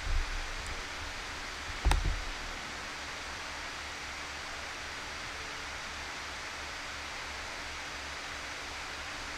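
Steady background hiss from the microphone, with a low thump right at the start and a single sharp knock about two seconds in.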